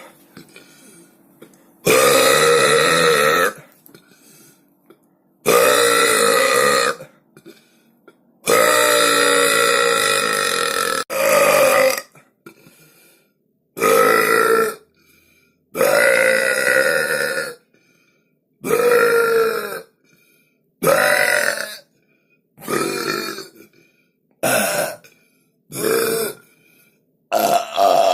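A person burping loudly, about a dozen separate belches one after another, each half a second to two and a half seconds long, some sliding down in pitch.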